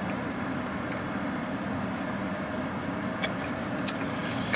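Steady low hum inside a car, with a few faint clicks about three and four seconds in.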